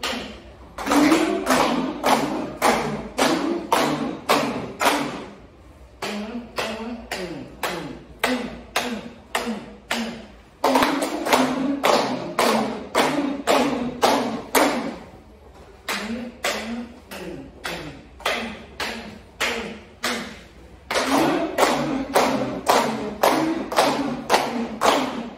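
A group of people clapping their hands together in a steady rhythm, about two claps a second. Voices sound along with the claps in phrases of about five seconds.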